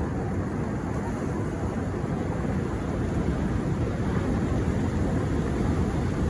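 Sea surf breaking on a beach: a steady low roar of waves, swelling a little about halfway through.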